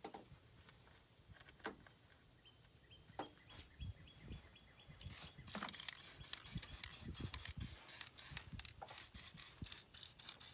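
Aerosol can of battery-terminal corrosion inhibitor spraying onto a car battery's terminals in a rapid series of short spurts, several a second, starting about halfway through. Before that come light clicks and knocks of the terminal being handled and a quick run of small ticks.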